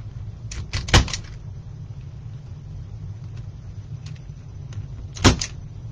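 Zip ties being snipped with hand cutters: a quick cluster of sharp clicks about a second in and one loud snap near the end, over a steady low hum.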